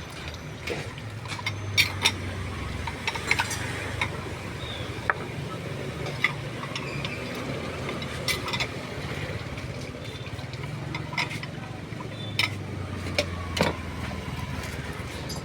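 Scattered sharp clinks and taps of utensils against dishes, over a steady low hum of traffic.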